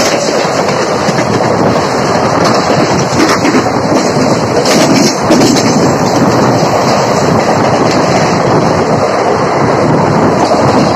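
Loud, steady rushing and rattling of a passenger train running at speed, with another train passing close alongside.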